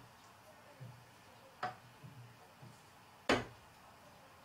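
A few separate sharp knocks of a wooden staff on the floor: a softer knock about one and a half seconds in and a loud, deep one a little after three seconds.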